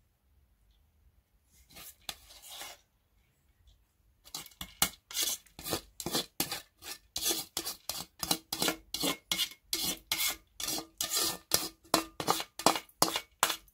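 A spoon scraping boiled rice out of a perforated colander into a pot, in quick repeated strokes about three a second. A short rustle comes about two seconds in, before the scraping starts.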